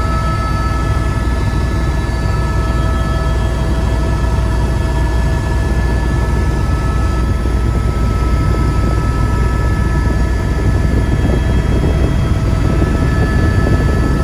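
Helicopter in flight heard from inside the cabin: a loud, steady deep rotor and engine rumble with a few steady high whining tones over it.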